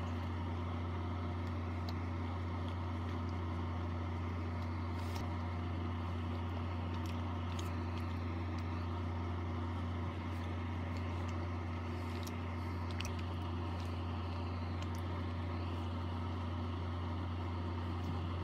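A steady low hum, with a few faint clicks of a person chewing a peanut and caramel brownie candy bar.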